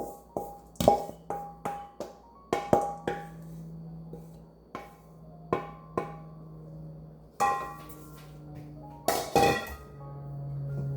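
Background instrumental music with a slow melody and a steady bass note, over about a dozen irregularly spaced sharp knocks.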